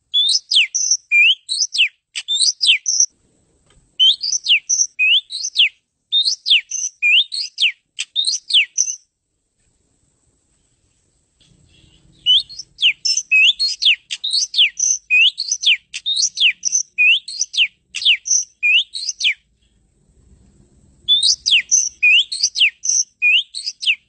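Oriental magpie-robin (kacer) singing: phrases of quick, repeated sweeping whistled notes, about two a second, broken by short pauses.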